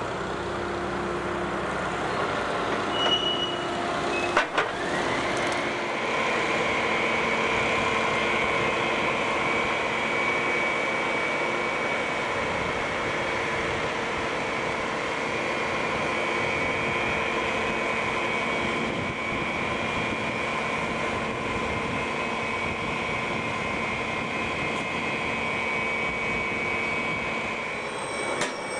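Heavy diesel machinery: a wheel loader's engine running. About four seconds in there is a short, sharp noise. Then a steady engine drone rises in pitch and holds at raised speed.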